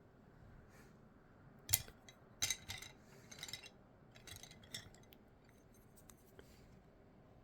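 Colored pencil scratching across paper in several short shading strokes, the first and loudest about 1.7 seconds in, the rest coming over the next three seconds.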